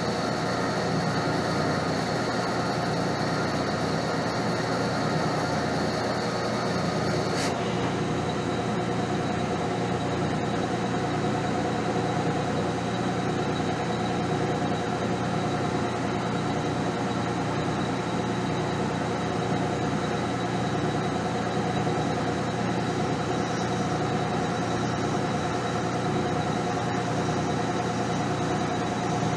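Metal lathe running, its spindle turning a part held in a 5C collet while the tool cuts: a steady hum with a high whine that steps slightly lower about seven and a half seconds in.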